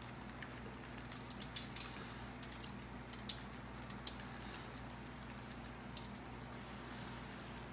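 Shredded mozzarella being shaken from a plastic cup onto peppers on a foil-lined tray: a scattering of faint, short clicks and crinkles. A steady low hum sits underneath.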